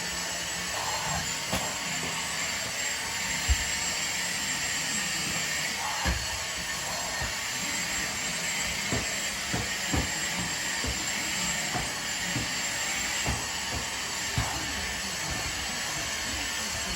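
Dyson vacuum cleaner running steadily, a continuous hiss of suction, with scattered soft knocks.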